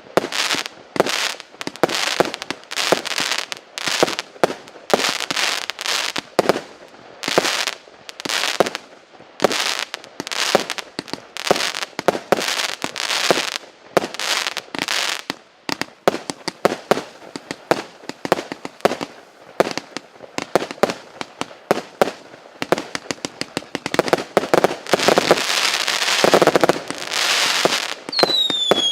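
258-shot, 0.8-inch consumer fireworks cake firing rapid volleys of shots, several a second, with a denser barrage a few seconds before the end. A falling whistle starts near the end.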